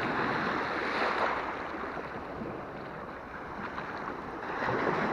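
Small waves washing onto a calm beach, the rush of water swelling near the start and again near the end.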